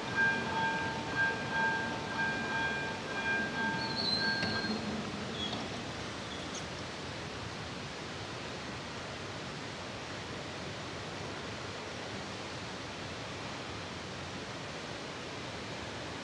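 Railroad crossing warning bell ringing in a steady repeated beat, stopping about five seconds in as the barriers finish coming down. After it stops there is only a steady outdoor hiss.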